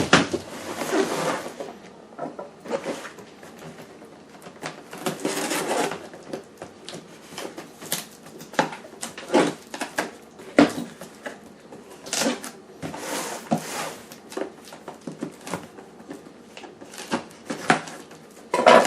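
Unpacking a boxed meat grinder: packaging rustling in several stretches, with many scattered sharp knocks and clunks as parts and box are handled.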